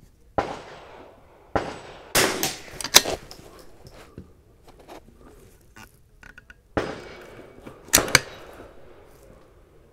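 A .22LR bolt-action rimfire rifle fired several times, a second or a few seconds apart, each crack sharp and followed by a short reverberating tail, with a pause of a few seconds in the middle.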